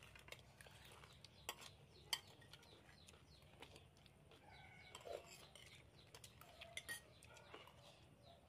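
Spoons clinking against ceramic plates and bowls, a few sharp clinks over a quiet background, the loudest about two seconds in and another pair near the seventh second.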